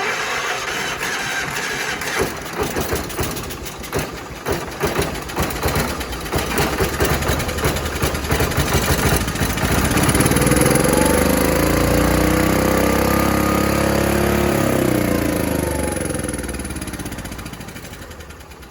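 Allis Chalmers tractor's Kohler engine starting after a head gasket replacement: it fires unevenly and sputters for about ten seconds, then catches and runs up to speed. Near the end it slows and dies away.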